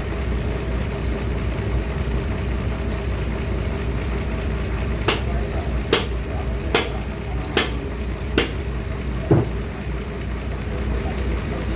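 A machine's engine running steadily. In the middle come five sharp clicks about a second apart, then one duller thud.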